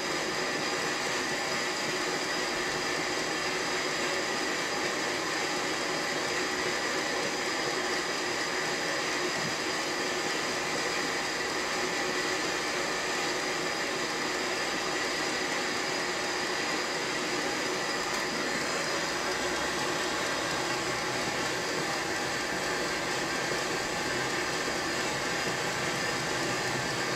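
A steady machine hiss with a faint hum, unchanging throughout.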